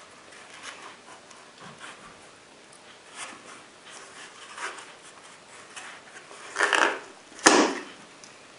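A nylon belt holster being handled, with light rustling and rubbing of the fabric. Near the end come two louder handling noises, the second starting with a sharp click.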